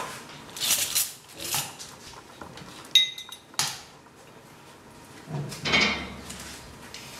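Kitchen clatter: steel bowls, pans and utensils knocked and set down on a steel counter in short irregular knocks, with one brief ringing metallic clink about three seconds in.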